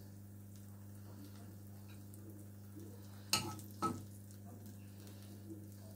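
A fork clicking twice against a non-stick frying pan while spring onions are lifted out, over a steady low hum.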